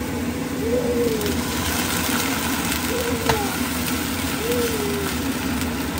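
Rice wine poured into a hot nonstick pan of frying king oyster mushrooms, ginger and garlic, sizzling steadily while a silicone spatula stirs. Four short low calls that rise and fall sound over the sizzle, about a second and a half apart.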